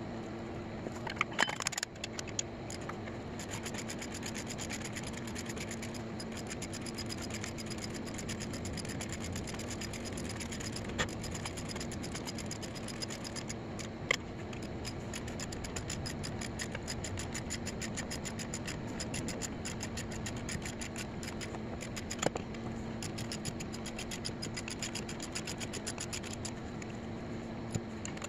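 Steady engine hum and road noise inside a moving vehicle, with a few sharp clicks or knocks, a small cluster of them about a second and a half in.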